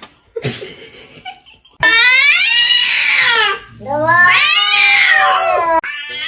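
Cat meowing: two long, loud, drawn-out calls, each rising and then falling in pitch, one after the other.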